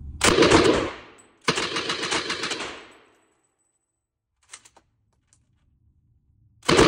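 DP27 light machine gun in 7.62×54mmR firing short bursts of automatic fire: one just after the start, another about a second and a half in, and a third starting near the end. Each burst rings on briefly in the concrete range, and a few faint clicks fall in the pause.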